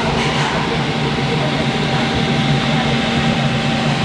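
Steady low mechanical hum of a running machine, with a faint thin high tone held over it.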